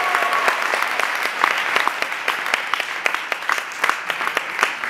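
Audience applauding after a live song: dense hand clapping that thins out slightly toward the end. A held tone from the closing music fades out about half a second in.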